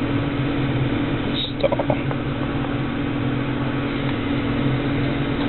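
A steady low hum of background room noise, with a brief faint sound about one and a half seconds in.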